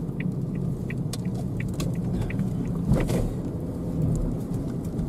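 Inside a slowly moving car: steady engine and road rumble, with the turn signal ticking about twice a second through the first half as the car turns into a car park, and a brief louder rush about three seconds in.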